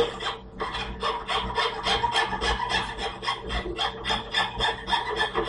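Hand frame scroll saw cutting a thin wooden board: quick, even rasping strokes of the blade, about four a second.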